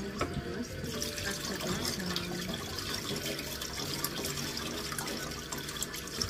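Water running from a kitchen tap into a sink as raw pork slices are rinsed under it.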